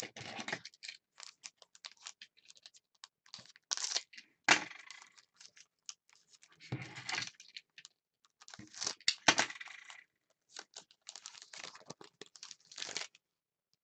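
A shiny trading-card pack wrapper being torn open and crinkled by hand, in irregular rustling bursts with a few sharper tears.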